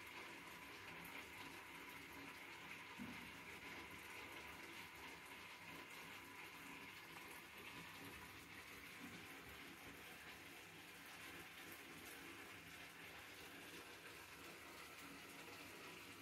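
Near silence: room tone, a faint steady hiss.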